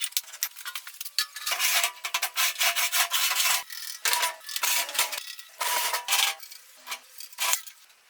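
Wood scraping and rubbing in irregular, rough rasping strokes, with no clear chopping impacts.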